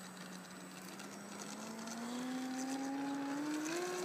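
Electric motor and propeller of an FMS Cessna 182 RC model plane whining. The pitch is steady, then rises smoothly from about halfway through and steps up again near the end as it gets louder, with the throttle opening for the takeoff run.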